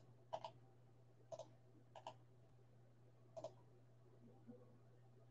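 Faint clicking of a computer mouse and keyboard, a handful of sharp clicks mostly in quick pairs like double-clicks, over a steady low hum.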